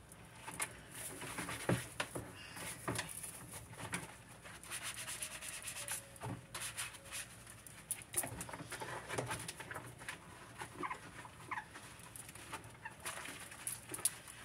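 Dishes being hand-washed in a kitchen sink: scattered clinks and knocks of plastic bowls and dishware, with a few short squeaky tones.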